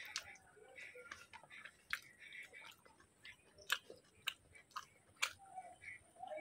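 Close-miked chewing and wet mouth sounds of a person eating a mouthful of rice and curry, with several sharp smacking clicks in the second half.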